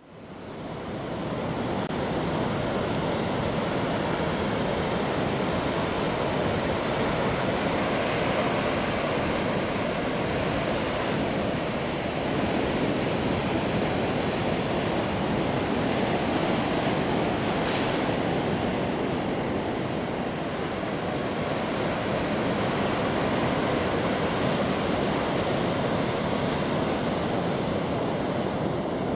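Caribbean surf breaking on a beach: a steady rushing wash of waves that fades in at the start and swells and eases slightly.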